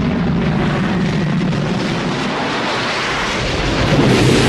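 Bede BD-5J micro jet's turbojet engine as a film sound effect: a steady, loud rushing jet sound of the little plane flying low and fast, growing louder and brighter near the end.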